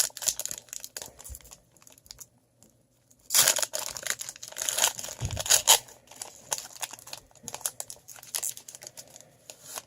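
A trading card pack's wrapper being torn open and crinkled by hand, in uneven bursts with a short pause about two seconds in and the loudest crinkling around three and a half and five and a half seconds in.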